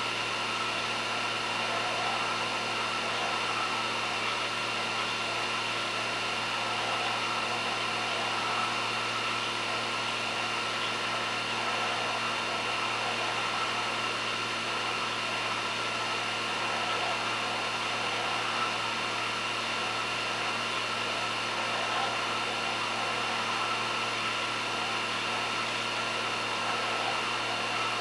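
Steady machine hum and hiss with a few constant tones, unchanging throughout.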